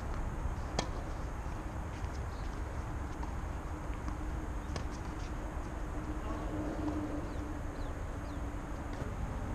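Tennis ball struck by rackets in a rally on an outdoor hard court: two sharp pops about four seconds apart, over a steady outdoor rumble and a faint low hum.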